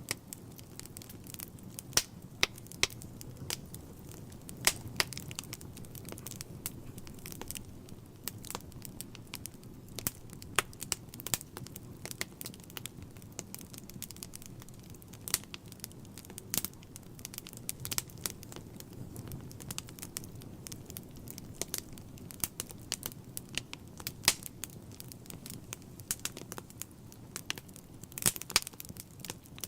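Wood fire burning in a fireplace: the logs crackle irregularly, with several sharp snaps and pops a second, a few much louder than the rest, over a low steady rumble of the flames.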